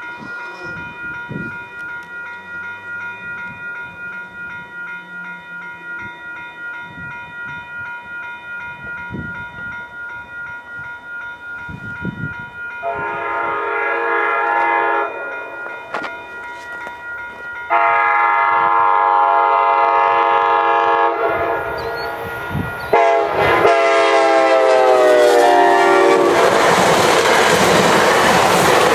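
Level-crossing warning bell ringing with a steady pulse. From about 13 seconds in, a GO commuter train sounds several long horn blasts for the crossing; the last one falls in pitch as the locomotive goes by. Then the loud, steady rush of the bilevel coaches' wheels on the rails.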